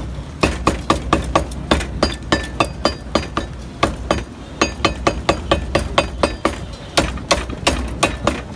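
Meat cleaver chopping mutton on a block: a fast, steady run of sharp blows, about four a second, some with a brief metallic ring.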